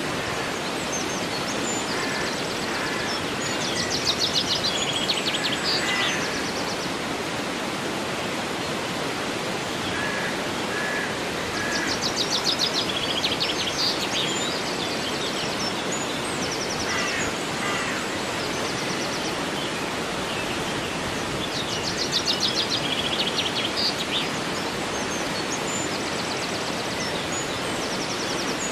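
A river flowing with a steady rushing sound, with a songbird singing a fast high-pitched trill three times, about ten seconds apart, and a few short chirps in between.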